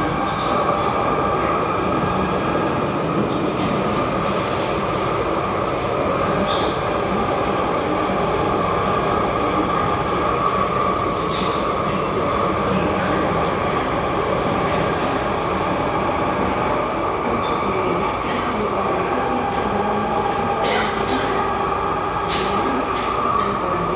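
Cabin noise of an SMRT C751B metro train running along the line: a steady rumble of wheels on rail with a constant high-pitched tone over it, and a few sharp clicks near the end.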